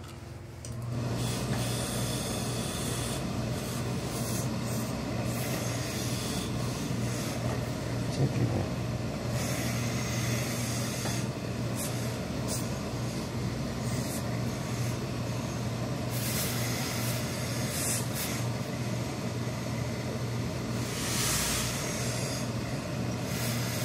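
Hose-fed industrial steam iron pressing wool suit trousers, with a steady machine hum that starts about a second in and several bursts of hissing steam.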